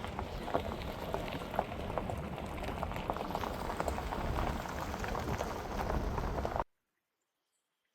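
Rain pattering: a dense crackle of many small drops over a low rumble. It cuts off abruptly about six and a half seconds in.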